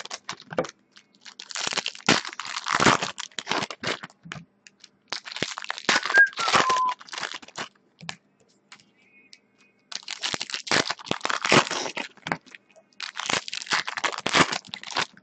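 Foil wrappers of Topps Prime football card packs being torn open and crinkled by hand, in several bursts of crinkling with short pauses.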